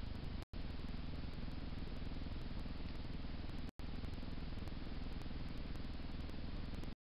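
Steady low rumble and hiss from a trail camera's microphone, with nothing else standing out, cut by two brief total dropouts where short recordings are spliced together.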